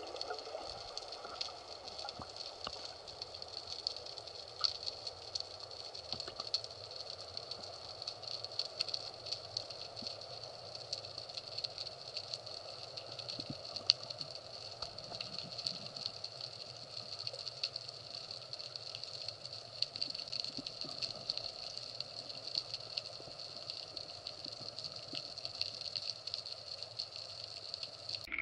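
Underwater ambience picked up through a camera housing: a steady hiss dotted with many small clicks and crackles, with one sharper click about halfway through.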